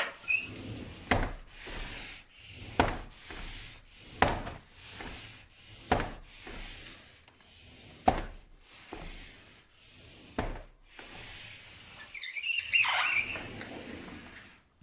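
A door being worked open and shut over and over, rubbing and catching on its frame with a knock every second or two, and a louder squeak near the end. The squeaking and catching are the sign of a badly fitted door, which the owner says is bowed.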